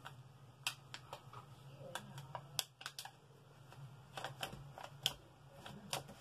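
Faint, irregular clicks and crinkles of a plastic heat-transfer-vinyl carrier sheet as fingers pick at and lift its edge, testing whether the pressed vinyl has stuck. A low steady hum runs underneath.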